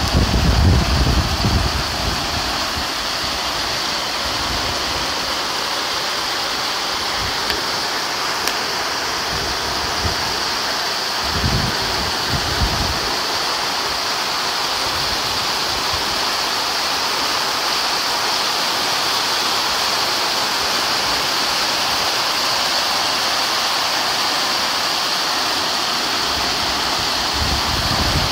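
Heavy rain falling steadily, a continuous loud hiss, with brief low rumbles near the start and again about halfway through.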